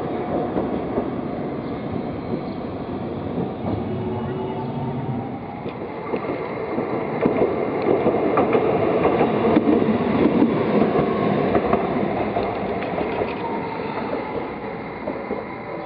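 Toden Arakawa Line streetcars running past on street-level track: a steady rumble of wheels on rail.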